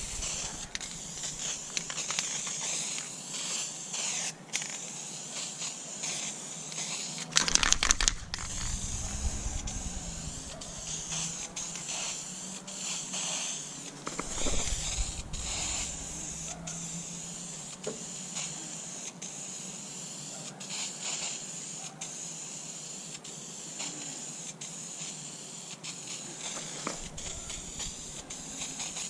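Aerosol can of Duplicolor vinyl and fabric spray paint hissing as it sprays a carpet piece in passes, the hiss stopping briefly again and again between strokes. A short loud clatter about seven seconds in.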